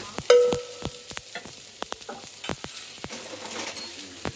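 Stirring in a pan on the stove: a utensil clicking and scraping against the pan over food frying with a light sizzle, with one ringing clink about a third of a second in.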